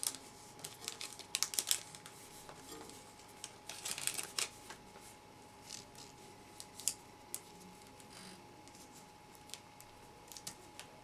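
Packaging film crinkling and crackling in short bursts as it is folded around a box, with scattered sharp clicks.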